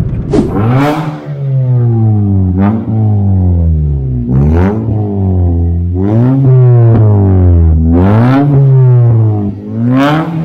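Honda Brio's four-cylinder i-VTEC engine revved repeatedly at a standstill through an aftermarket full-system exhaust (downpipe, front pipe, straight-through resonator and Pro Street muffler): about five throttle blips roughly two seconds apart, the pitch climbing and falling each time, with a sharp pop at each blip.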